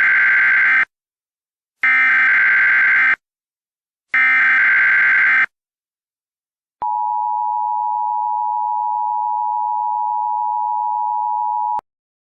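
Emergency Alert System sequence: three short bursts of SAME header data tones about two seconds apart, the first already sounding at the start. After a pause, a steady attention tone begins about seven seconds in, lasts about five seconds and cuts off sharply.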